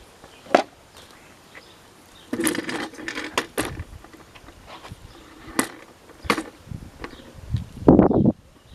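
1920 Underwood Standard Model 5 manual typewriter being typed on: scattered sharp key strikes, a quick run of several about two seconds in, then a louder, longer clatter near the end.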